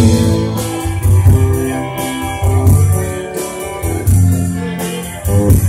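Live rock band playing an instrumental stretch through a PA: drum kit with a steady beat on the cymbals, electric guitars and bass guitar.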